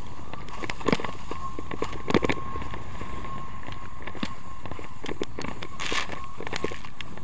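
Wind rushing over an action camera's microphone and water spray from a water ski skimming across a lake, with a faint steady whine and many short sharp hits of spray and chop against the ski and camera.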